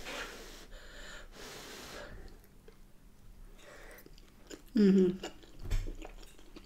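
A woman huffing breath in and out of her mouth around a mouthful of very hot food, in several short breathy puffs, then chewing quietly, with a short hummed "mm" about five seconds in.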